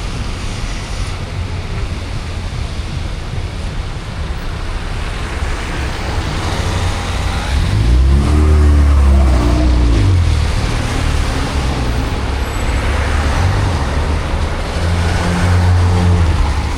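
City street traffic on wet roads: a steady hiss of tyres and engines, with one vehicle's engine rising and falling in pitch as it passes about eight seconds in, and another engine drone near the end.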